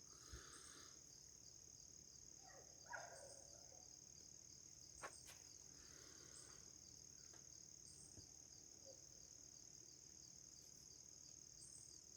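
Near silence with a faint, steady high-pitched trill of crickets, and a few soft clicks about three and five seconds in.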